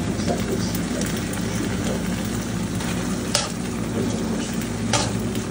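A metal spoon stirring and scraping shrimp mac and cheese in a hot pan, over a steady sizzling hiss, with two sharp clinks of the spoon against the pan about three and a half and five seconds in.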